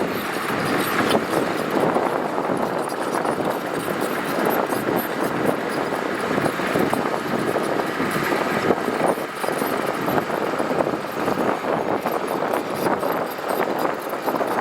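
Heavy earthmoving machinery working gravel: a dense, continuous grinding and rattling noise with machine engine sound beneath it.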